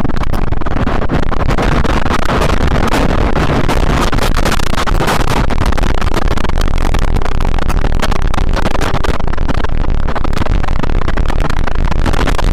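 Tornado winds blowing at full force, a loud, unbroken noise with a heavy low rumble. Many short cracks and knocks run all through it, from flying debris.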